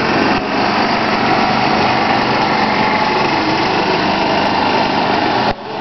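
A small motor running steadily and loudly, with an even drone. The sound drops out briefly just before the end.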